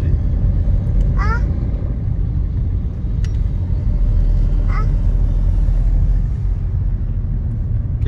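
Steady low rumble of a car driving on a town road, heard from inside the cabin.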